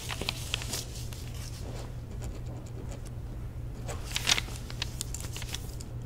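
Quiet desk work: scattered small clicks and scratches of papers being handled at an office desk, with a louder cluster about four seconds in, over a low steady room hum.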